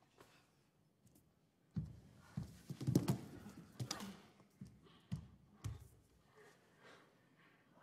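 Dancers' bodies and bare feet on a stage floor: a string of dull thumps and short scuffing steps as the woman is lifted, dropped and caught.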